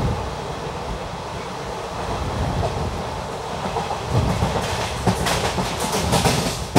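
ICF passenger coach running on the rails: a steady rumble, with the clickety-clack of the wheels over rail joints turning louder and sharper about four seconds in.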